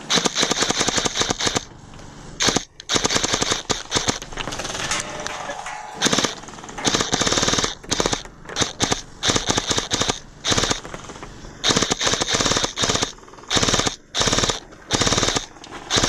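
Gel blasters firing full-auto, a rapid rattle of gel-ball shots in bursts: one long burst at the start, then many shorter bursts with brief gaps between them.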